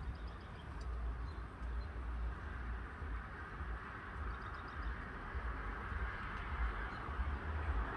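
Wind buffeting the microphone with a steady low rumble and a rustling hiss, with faint wild birds chirping in the background a few times.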